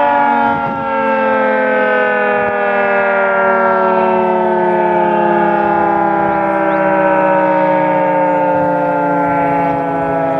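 Federal Signal 3T22 outdoor warning siren sounding its multi-tone chord loudly, the pitch falling slowly and steadily.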